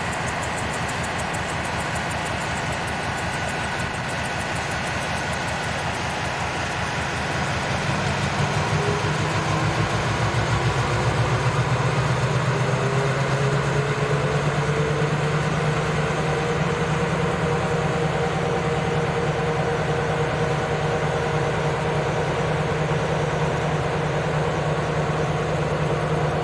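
Diesel locomotive engine running with a steady pulse, throttling up about eight seconds in: it gets louder with a slowly rising whine, then holds steady at the higher setting.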